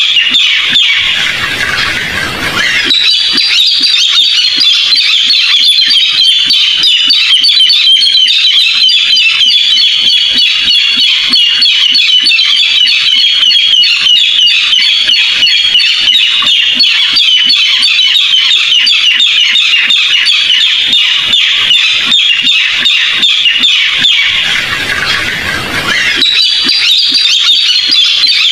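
Barred rail calling: a loud, high-pitched, rapid chatter of harsh notes that runs on without a break, dipping briefly about two seconds in and again near the end.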